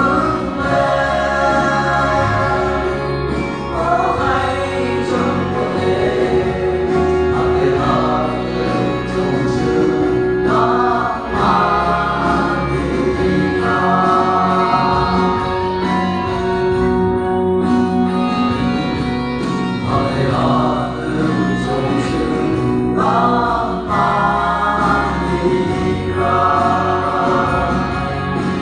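A small group of young men singing a gospel song together into handheld microphones, amplified through the hall's sound system, with held sung notes over a steady low backing.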